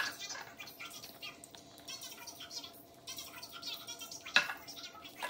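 Plastic soap-dispenser pump being fitted onto and handled with a glass bottle: small clicks and rubbing, with a sharp knock at the start and a louder one about four seconds in, over a faint steady hum.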